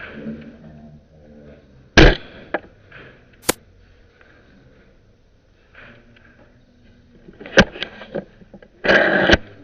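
A loud, sharp knock about two seconds in, as from a spring airsoft sniper rifle firing, followed a second and a half later by a single sharp click. A cluster of clicks comes near the end, then a short noisy rustle.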